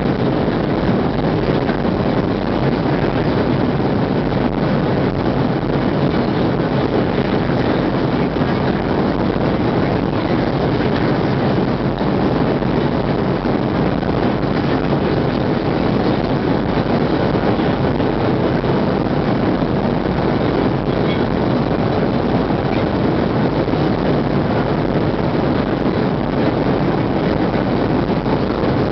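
Steady rush of airflow and jet-engine noise inside the cabin of a Boeing 737-700 in flight, from its CFM56-7B turbofans.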